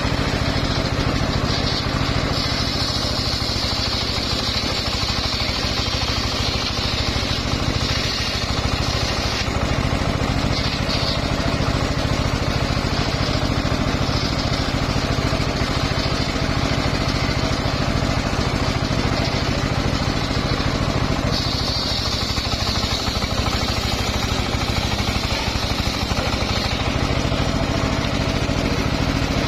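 Home-built engine-driven circular sawmill running steadily. The blade cuts through a mahogany log twice, a high whine over the engine for about eight seconds early on and again for about six seconds later.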